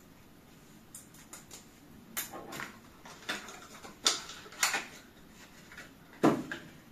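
Small plastic cosmetic bottles and their caps being handled: a series of clicks and light knocks starting about a second in, about half a dozen sharper ones, the loudest a knock near the end.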